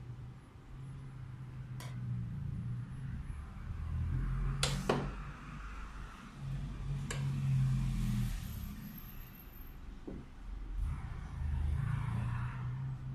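Schmidt manual press being worked by hand: a few sharp metallic clicks and knocks from the ram, tooling and workpiece, the loudest a double knock about five seconds in, over low rumbling handling noise.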